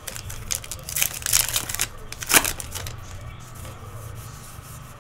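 Foil wrapper of a trading card pack being torn open and crinkled, the loudest rip about two and a half seconds in, then quieter rustling as the cards are handled.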